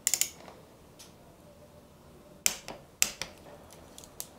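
Click-type torque wrench working a bicycle suspension pivot bolt: sharp metallic clicks in small irregular clusters, a quick run of three at the start, then single clicks and pairs spread through the rest.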